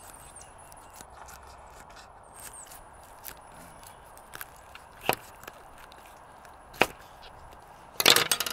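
Knife cutting the head off a scaled largemouth bass: scattered sharp cracks as the blade works through the backbone, with a quick run of crunching near the end.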